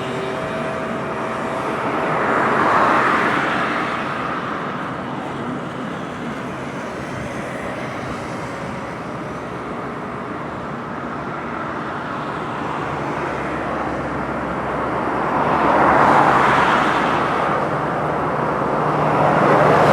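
Road traffic passing close by: a steady rush of tyre and engine noise, with passing vehicles swelling louder about three seconds in, around sixteen seconds, and again near the end.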